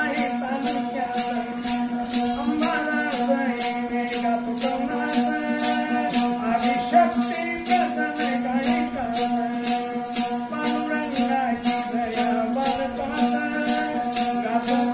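A man sings a Marathi devotional folk song over the steady drone of a plucked one-string tuntuna. A jingling hand clapper keeps an even beat of about two to three strokes a second.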